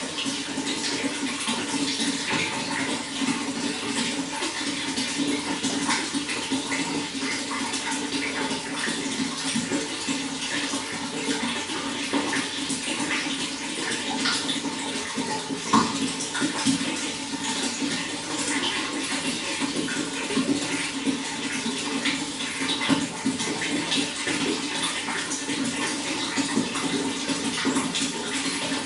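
Running water, a steady rush broken by frequent small irregular splashes.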